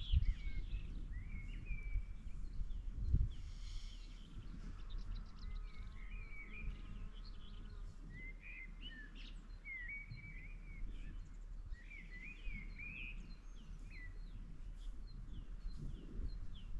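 Small birds chirping and singing in short rising and falling notes, over a steady low rumble, with a couple of soft low knocks in the first few seconds.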